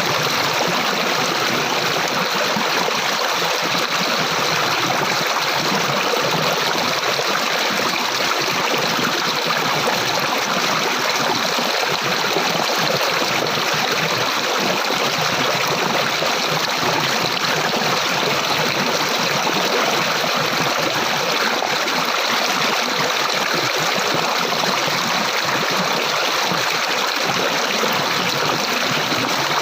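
Water flowing in a stream, a steady rushing and trickling that holds even throughout.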